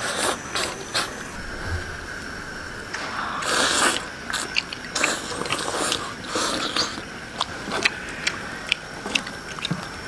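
Close-up eating sounds: meat chewed and broth slurped in several noisy bursts, with short sharp clicks of chopsticks against a bowl.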